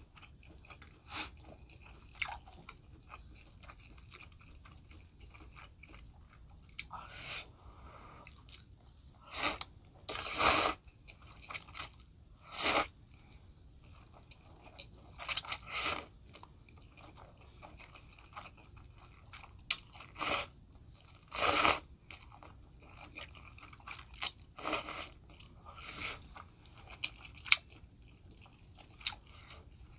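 A person slurping and chewing spicy instant noodles, miked close: about a dozen short, noisy slurps with quieter wet chewing between them.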